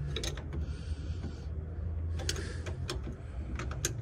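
Scattered metallic clicks, taps and short scrapes of a wrench working on fittings in a VW Brasília's engine bay, over a steady low hum.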